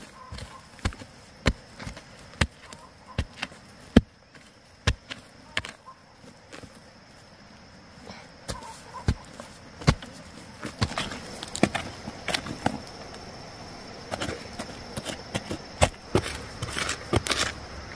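A hand tool striking repeatedly in a steady chopping rhythm, about one strike every 0.8 s. The strikes thin out for a few seconds in the middle, then come faster and less evenly near the end, mixed with rustling.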